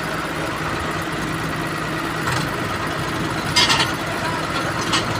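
Heavy engine running steadily, with a few sharp knocks over it; the loudest comes about three and a half seconds in.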